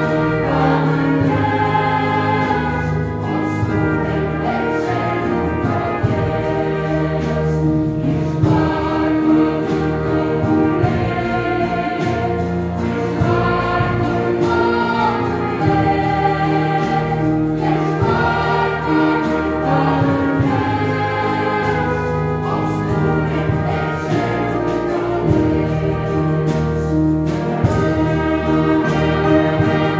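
A church orchestra of violins, clarinet and brass playing a Romanian hymn, with voices singing it as a choir.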